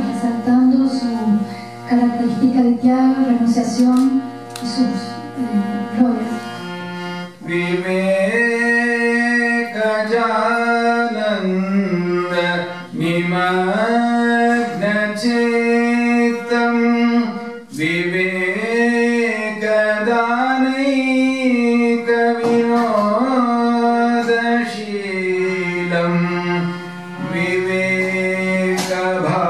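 Harmonium playing over a steady held drone while a man sings a devotional song; the voice and harmonium grow fuller from about seven seconds in.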